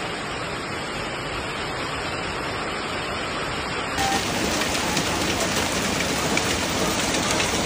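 Hail and rain pelting down in a dense, steady hiss. The sound changes abruptly about four seconds in and is a little louder after the change.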